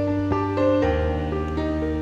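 Background music: a melody of steady held notes over a low sustained bass, which moves to a new note a little under a second in.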